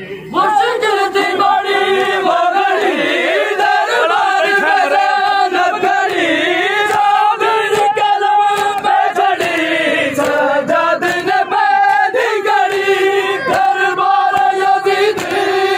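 A crowd of men chanting a noha (Shia lament) together, many loud voices singing in unison.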